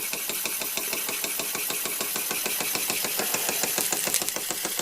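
Bing 10/12/2 toy steam engine running at speed, a rapid even ticking over a steady steam hiss, as it drives a small grinding wheel.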